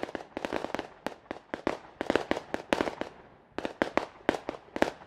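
Scattered hand clapping from a small audience: irregular sharp claps, several a second, thinning briefly in the middle.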